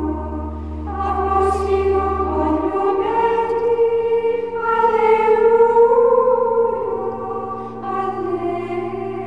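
Choral music: a choir singing slow, held chords over a low sustained bass note.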